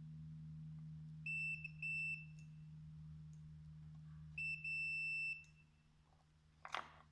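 Multimeter continuity beeper sounding in two spells, first a few short broken beeps and then a longer beep, as the probes find connection across the resoldered micro switch's legs. A sharp click near the end, over a steady low hum.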